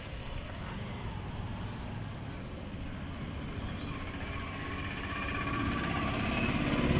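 A motorcycle engine running, getting louder over the last couple of seconds.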